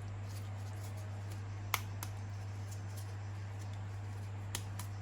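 A few light, sharp clicks as plastic toys and their packaging are handled, the loudest a little under two seconds in, over a steady low electrical hum.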